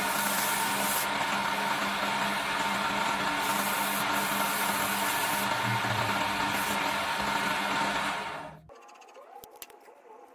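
Electric wood lathe running with a steady motor hum and the rushing noise of the spinning wooden workpiece under a hand. The sound stops abruptly about eight seconds in, leaving only faint, scattered sounds.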